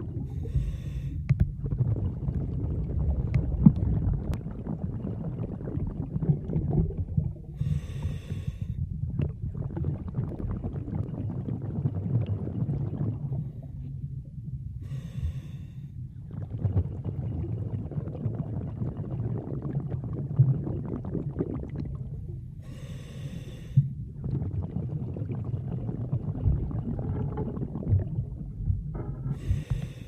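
A swimmer's breaths, five of them about every seven seconds, over a steady underwater rumble and crackle of moving water.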